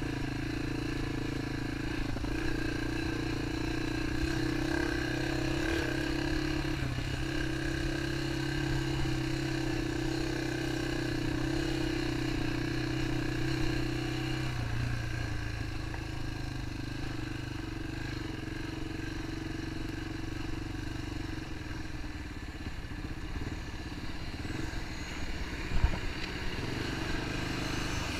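Yamaha XT 225's single-cylinder four-stroke engine running while the bike is ridden at a steady pace; the engine note drops about halfway through. A sharp knock near the end.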